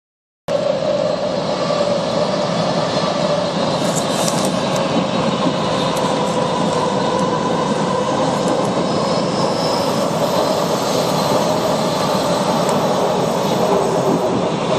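WMATA Metrorail train running, heard from inside the railcar: a steady rumble and rail noise with a high steady whine, strongest in the first few seconds.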